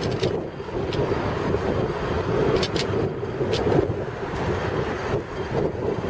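Steady wind buffeting on the microphone mixed with road rumble from the moving camera, with a few short rattles or clicks about halfway through.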